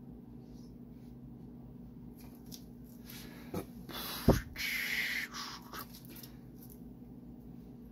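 A sharp knock about four seconds in, then a breathy puff of air lasting about a second, over a steady low hum.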